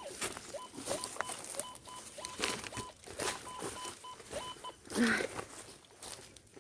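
Footsteps crunching on dry ground and brush while walking, with a metal detector giving a run of short, evenly spaced high beeps, about two to three a second, that stop shortly before five seconds in.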